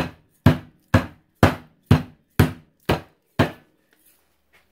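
A rolling pin pounding a raw chicken breast sealed in a plastic bag, flattening it. It strikes in a steady beat of about two blows a second, eight blows in all, then stops about three and a half seconds in.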